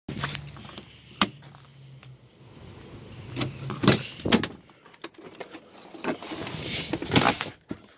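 Pickup truck door being handled and opened: a sharp click from the handle or latch, then several loud clunks with rustling and shuffling between them.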